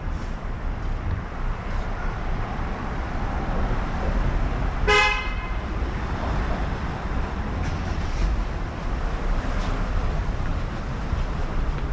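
A single short horn toot about five seconds in, over a steady low rumble of traffic and wind.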